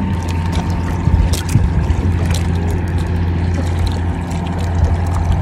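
Small boat engine running with a steady low drone as a wooden outrigger boat moves across the water, with light splashing of water against the hull.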